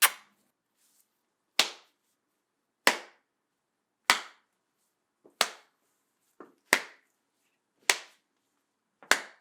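Leather paddle smacking sharply, about eight strokes at a steady pace of roughly one every second and a quarter, a few with a lighter tap just before.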